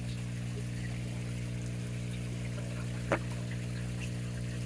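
Pond pump running with a steady electric hum while water trickles and pours. A single short plop is heard about three seconds in.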